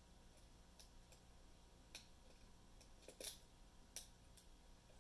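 Faint, scattered metallic clicks of a lock pick and tension wrench working the pins inside a pin-tumbler lock cylinder, the loudest a quick double click about three seconds in.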